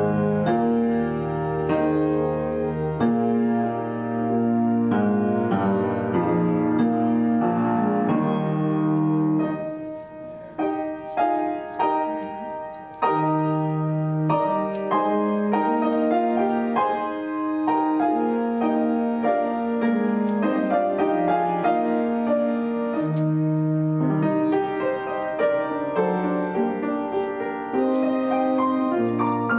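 Organ and piano playing together, with held organ notes under struck piano chords, briefly softer about ten seconds in.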